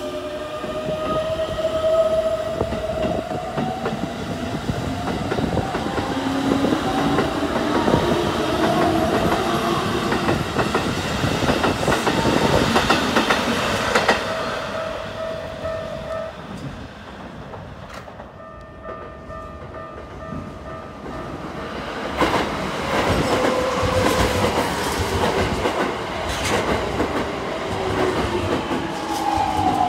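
Keikyu electric trains moving through the station: motor whine gliding up and down in pitch over rumbling wheel and rail noise. Quieter for a few seconds past the middle, with only a steady hum, then another train's whine rises again as it moves off.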